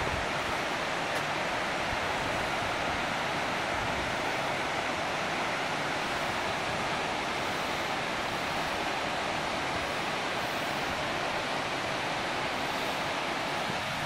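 Mountain waterfall and its rocky stream rushing, a steady even roar of falling and tumbling water.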